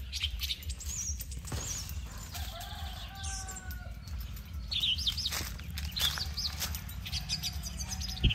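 Small birds chirping in short, scattered calls, over the soft crunch and rustle of footsteps on a dirt path strewn with dry leaves. About three seconds in, a lower, drawn-out bird call sounds for a second or so.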